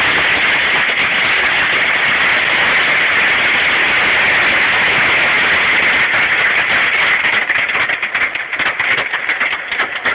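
Hailstones hammering down in a dense, steady clatter of countless small hits; about three-quarters of the way through it thins and turns uneven, with separate strikes standing out.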